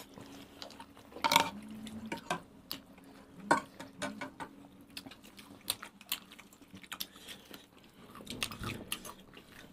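Eating noises at a table: scattered light clicks of spoons and forks against bowls, with chewing and slurping of noodles, over a faint steady low hum.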